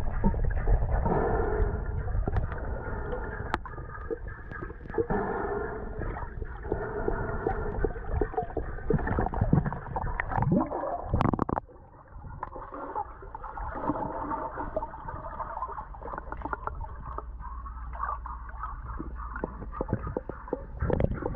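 Muffled underwater sound of a swimming pool heard through a submerged GoPro's waterproof housing: a steady low rumble of water with scattered clicks and knocks. A louder knock comes about eleven seconds in, and it is briefly quieter just after.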